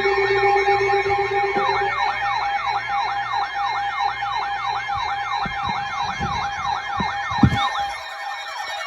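Electronic alert siren yelping in rapid rising-and-falling sweeps, about four a second, over steady high alert tones. A lower tone underneath stops about two seconds in, a sharp click comes near the end, and the siren fades slightly in the last second.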